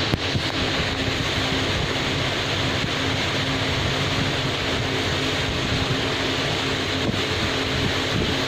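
Steady noise of road traffic from the street, an even rush with a faint continuous hum. A single short click comes at the very start.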